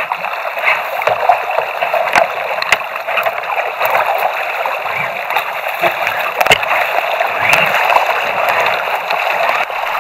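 Choppy sea water splashing and gurgling against the hull of a sit-on-top fishing kayak, with a few sharp knocks.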